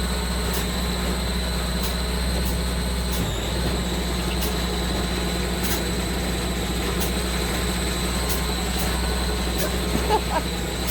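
Heavy machinery running steadily, with a deep hum and faint regular ticks about once a second.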